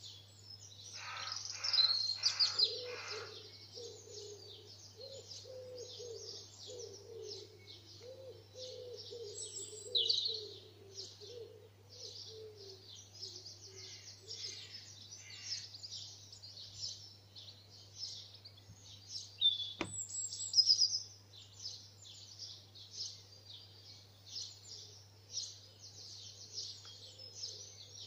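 Dawn chorus of many songbirds chirping and trilling together without a break, with a lower repeated call under it for the first dozen seconds. A single sharp click sounds about twenty seconds in, over a steady low hum.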